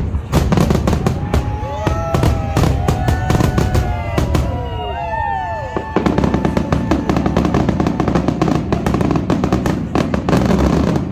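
Fireworks going off in quick succession, with continuous bangs and crackling. From about two to six seconds in, several whistling fireworks arch up in pitch and fall away.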